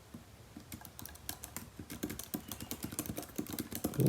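Typing on the Apple Magic Keyboard for iPad Pro: quick, irregular key clicks that start slowly and pick up pace about a second in.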